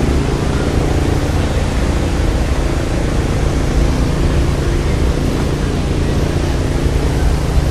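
A loud, steady machine drone with a low hum and a broad hiss over it, holding even and unbroken throughout.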